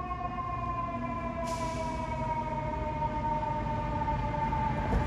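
Fire engine siren sounding as the rig drives off: a steady wail whose pitch falls slowly, over low traffic rumble. A hiss joins it suddenly about a second and a half in.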